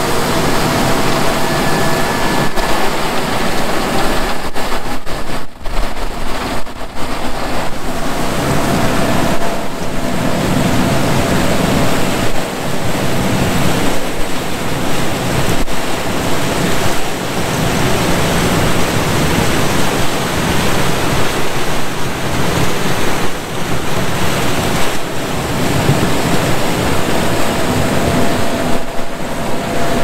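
Case IH 5130 Axial-Flow combine harvesting corn close by: a loud, steady rush of engine and threshing machinery with a faint steady whine, and wind buffeting the microphone.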